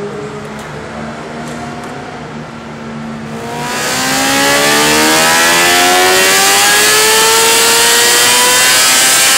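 Moto2 race bike's Honda 600 cc inline-four engine, breathing through a prototype LeoVince titanium exhaust, run up on a dyno. After a quieter steady hum, about three and a half seconds in it gets much louder and climbs steadily in pitch through the revs under load, a dyno power run.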